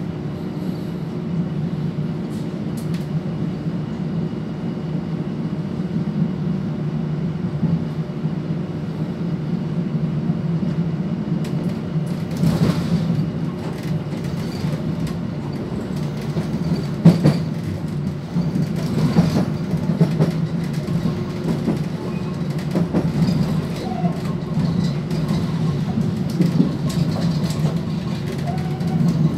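Cabin sound of a Stadler Regio-Shuttle diesel railcar on the move: a steady low drone of engine and running gear, with wheels clicking and knocking over rail joints and points. The sharpest knock comes about 17 seconds in.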